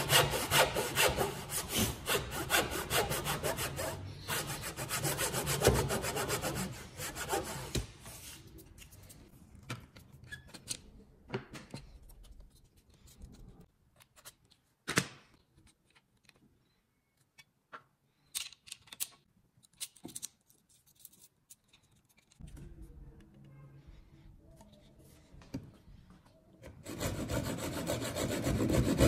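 Hand saw cutting through impregnated pine with quick, rapid strokes. The sawing dies away after about eight seconds into a quiet stretch of scattered taps and knocks, with one sharper knock about halfway through, and strong sawing strokes start again near the end.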